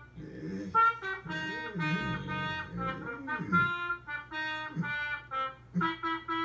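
Trumpet solo playing back from a video, a string of held notes. Underneath it an English bulldog vocalizes in low, wavering tones that rise and fall, reacting to the trumpet.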